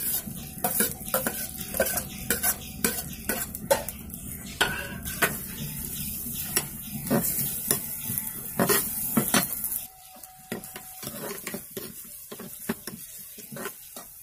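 A steel spoon stirring onions, ginger-garlic and green chillies as they fry in oil in a black clay pot: repeated scrapes and clicks of metal against the pot over a light sizzle.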